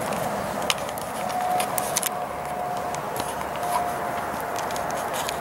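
Steady roar of distant road traffic, like a freeway carrying a lot of cars, with a steady tone running through it and scattered sharp clicks.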